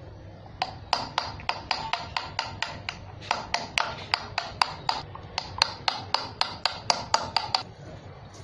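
Light hammer taps on a punch held against the inside of a motorcycle rear brake drum, about four a second, each with a short metallic ring, stopping shortly before the end. The punch marks roughen the drum's glazed, too-smooth braking surface so the brake shoes grip instead of slipping.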